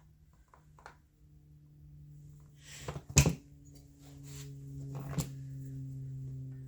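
Tools and small chainsaw parts being handled on a workbench: scattered clicks and a sharp knock about three seconds in, another knock about two seconds later. A steady low hum comes in about four seconds in.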